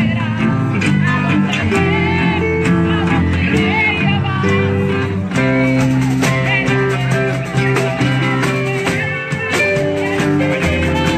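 Live worship music from a band: guitar and bass notes over frequent drum hits, loud and continuous.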